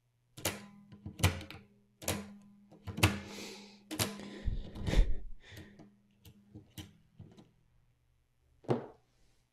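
Metal mechanism of a Sony OA-D34V 400k floppy drive being handled and worked by hand: a run of sharp clicks and clacks about once a second, with a short rustle among them, then a last click near the end.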